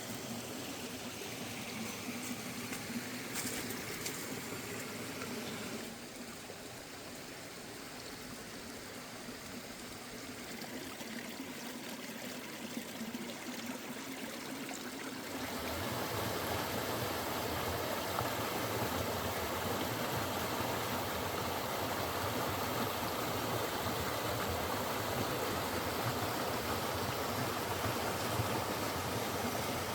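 Running water of a stream at a waterfall, a steady rushing noise. It drops a little about six seconds in, then becomes suddenly louder and fuller about halfway through.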